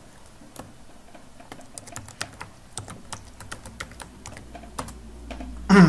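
Computer keyboard being typed on: an irregular run of key clicks as a password is entered. A brief vocal sound comes near the end.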